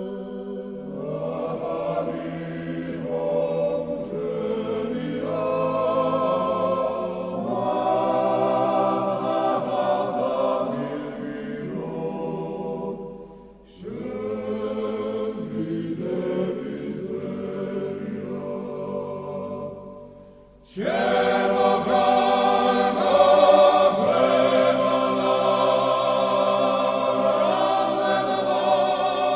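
A choir singing a slow chant in several parts, with long held notes. It breaks off briefly about 14 s in and again about 20 s in, then comes back louder and fuller.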